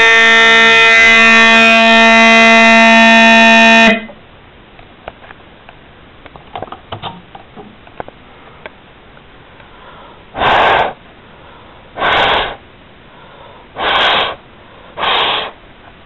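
Simplex 4051 fire alarm horn sounding a loud, steady, buzzy tone that cuts off suddenly about four seconds in. After a few faint clicks, four short loud bursts of sound come in the last six seconds.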